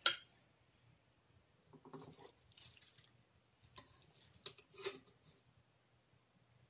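Metal spoon scraping and tapping against a metal wok while scooping saucy chicken pieces out. A few short, faint scrapes and taps, the first the loudest.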